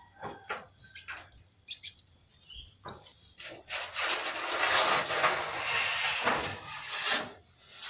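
Prenjak lumut, a small songbird, giving a few short sharp chirps, then a loud harsh raspy chatter lasting about three and a half seconds from about halfway in.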